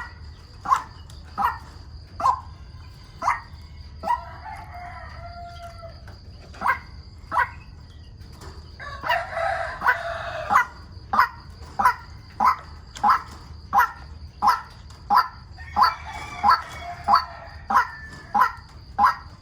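White-breasted waterhen calling: a monotonous string of short, sharp notes repeated one to two times a second. A rooster crows three times over them.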